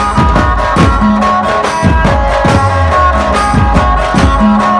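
Chhattisgarhi dhumal band playing live and loud: large bass drums and dhols beat a steady rhythm of about two to three strokes a second under a high, held melody line.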